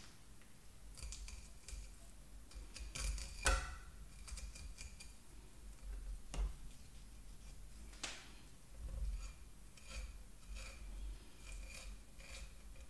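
A kitchen knife slicing a fillet off a Dover sole: light, scattered scraping and clicking as the blade runs along the fish's bones. A few sharper clicks mark where the blade meets the wooden cutting board.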